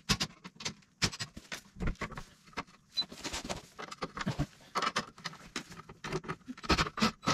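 Hand ratchet wrench clicking and metal tools and fasteners knocking while loosening steel flange nuts and bolts on a mower's sulky platform, in short irregular clicks several times a second.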